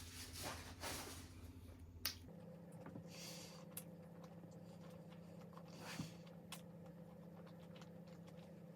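Faint eating and food-handling sounds: a few light clicks and soft rustles over a low steady hum.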